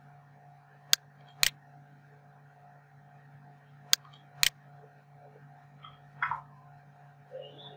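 Computer mouse clicks: two pairs of sharp clicks, each pair half a second apart, the second pair about three seconds after the first, over a steady low electrical hum. A softer tap about six seconds in.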